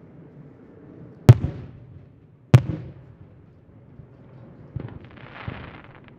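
Aerial firework shells bursting: two sharp bangs about a second and a quarter apart, the first the loudest, each trailing off in an echo. Near the end comes a softer, more distant thump and a short spell of hiss.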